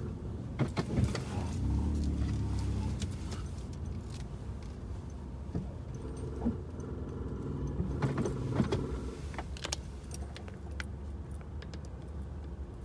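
Keys jangling with scattered clicks and knocks of handling inside a parked car's cabin, over a low steady rumble.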